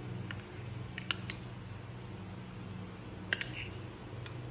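A metal spoon scraping chili paste from a ceramic ramekin and clinking against it and a stainless steel mixing bowl: a handful of sharp clicks, the loudest a little past three seconds in, over a steady low hum.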